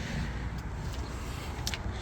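1958 Oldsmobile 88's V8 engine idling steadily with a low, pulsing exhaust rumble, one of its first runs after sitting as a barn find, fed from a temporary fuel tank.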